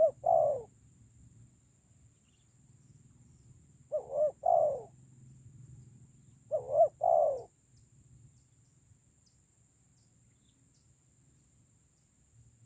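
Spotted dove (tekukur) cooing: three short phrases of two or three notes each, the first right at the start, then two more about four and six and a half seconds in.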